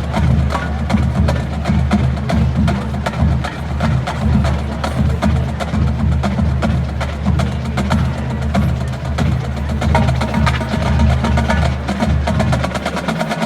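Marching band drumline playing: a dense run of stick and rim strikes over booming bass drums, continuing for the whole stretch.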